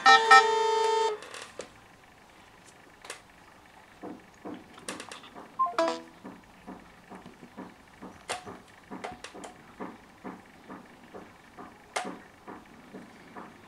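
Mobile phone ringtones sounding together, which cut off about a second in. Then scattered light taps and clicks of fingers on smartphone touchscreens, with a short electronic tone about halfway through.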